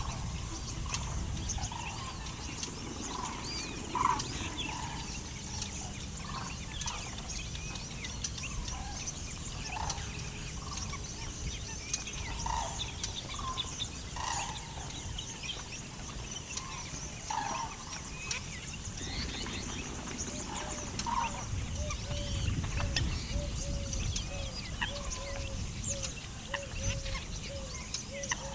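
Birds calling and chirping, many short calls overlapping throughout. From about two-thirds of the way in, a steady run of short repeated notes comes in at about two a second.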